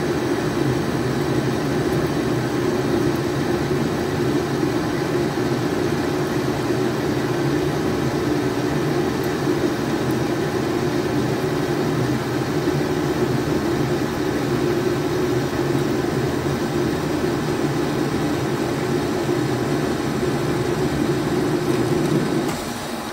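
Metal lathe running under power, taking a light finishing cut on a 1018 steel part: a steady mechanical hum. Near the end the sound drops suddenly to a quieter hum.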